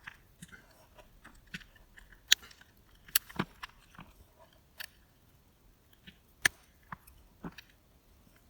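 Irregular small clicks and taps of plastic parts being handled and pressed into place while a CamelBak Eddy bottle lid is reassembled.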